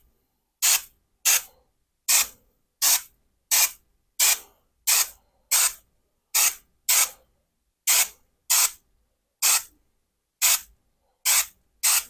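Aerosol spray can of knockdown wall texture sprayed in about sixteen short hissing bursts, each a fraction of a second long and spaced irregularly, roughly one a second or a little faster. The can is bumped lightly to speckle droplets of texture mud onto the drywall patch.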